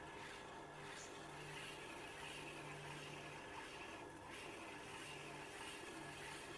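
Faint, steady running of a Tormek sharpening machine's motor, a low hum that swells and fades, while a steel oboe-reed scraping tool is honed on its leather honing wheel.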